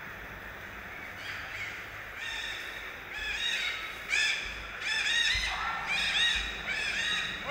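Many short, high calls from several animals overlapping, each rising and falling in pitch; they start faintly about a second in and grow busier and louder from about three seconds in.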